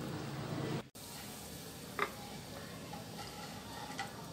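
Quiet room tone that drops out briefly about a second in, followed by two faint light clicks about two seconds apart.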